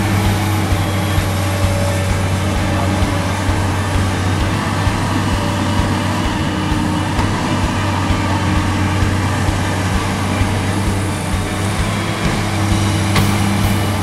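Komatsu PC200 hydraulic excavator's six-cylinder diesel engine running steadily with a deep, even hum as the machine digs and lifts soil.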